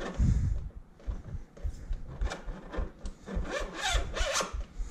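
BikeYoke dropper seat post being slid down into a mountain bike's metal seat tube, rubbing and scraping against the tube in several irregular strokes, busiest in the second half, with a few low knocks from handling.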